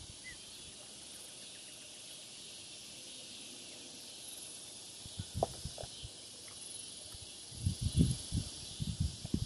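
A steady, high-pitched insect chorus drones on. Short low thumps come a couple of times about halfway through and in a cluster over the last two seconds.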